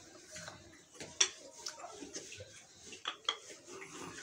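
Wooden rolling pin rolling stuffed dough on a floured wooden board, with scattered light knocks and clacks of wood on wood, the sharpest about a second in and again about three seconds in.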